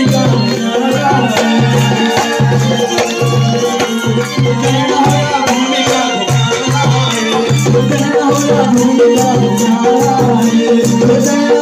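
Loud Indian devotional folk music with a steady drum beat, a crowd clapping along.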